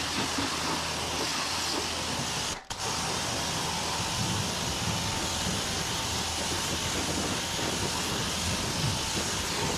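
Kränzle 1122 TST electric pressure washer set to about 1000 PSI, its wand jet hissing steadily as it rinses the underside of a car's hood and the engine bay, with a low hum beneath. The spray breaks off briefly about two and a half seconds in.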